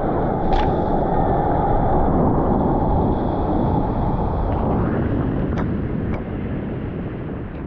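Wind buffeting the microphone over beach surf, a steady low rush that eases off and fades out toward the end. There are a few faint clicks, about half a second in and again around six seconds.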